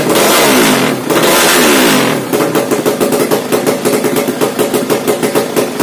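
Yamaha Jupiter drag bike's bored-up 200cc carbureted single-cylinder four-stroke revved through a new aftermarket exhaust: two hard blips whose pitch falls as the throttle shuts. About two seconds in it drops to a lumpy, pulsing idle.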